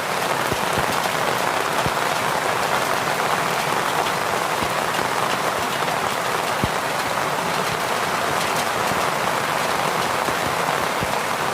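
Steady rain falling, with a few sharp ticks scattered through it.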